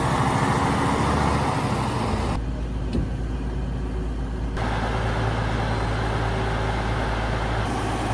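Heavy truck's diesel engine running steadily with a low hum. The sound turns duller at about two and a half seconds and brightens again near four and a half, with a single short knock about three seconds in.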